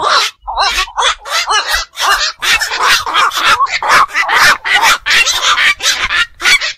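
Black-crowned night herons giving harsh, croaking calls in a rapid, nearly unbroken series of short calls that overlap one another.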